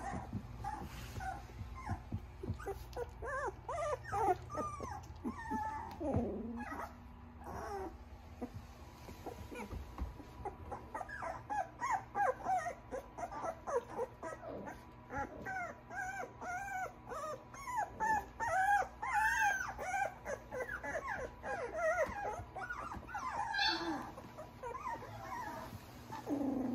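A litter of young Australian Shepherd puppies whimpering and squeaking, with many short high-pitched cries overlapping. The cries come thickest through the middle and latter part, over a faint steady hum.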